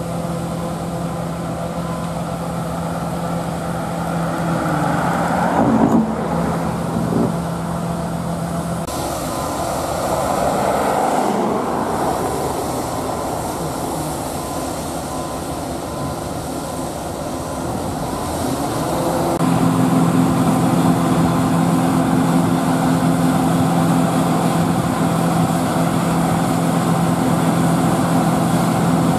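John Deere 9570 STS combine's diesel engine and machinery running with a steady hum. In the middle the hum gives way to a noisier rushing sound for several seconds, then the steady hum returns louder.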